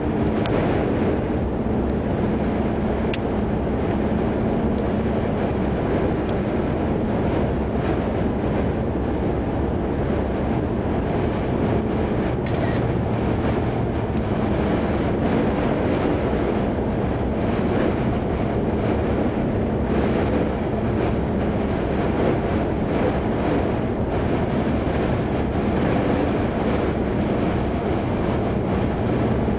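Steady road noise inside a car cruising on a freeway: an even rumble of tyres with a low engine hum underneath.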